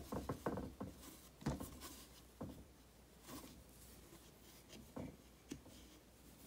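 Faint handling noises from hands working at the open buttstock trapdoor of a Krag-Jorgensen rifle: scattered clicks, taps and brief rubbing, the busiest cluster right at the start, then single clicks every second or so.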